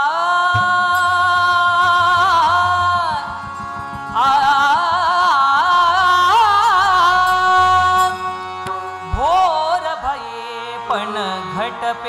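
A male voice sings an Indian classical-style song with instrumental accompaniment. He holds long notes, then sings ornamented, wavering runs over a low steady drone, and near the end slides into new phrases.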